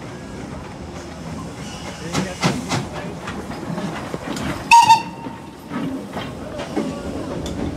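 Steam locomotive whistle giving one short, sharp toot about five seconds in. A few metallic knocks come earlier, with voices murmuring in the background.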